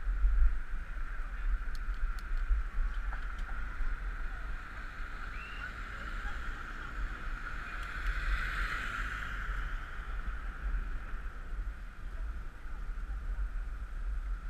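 Wind buffeting the microphone of a camera riding on a moving bicycle, with a steady high hum underneath. A car passes close by, swelling and fading about eight seconds in.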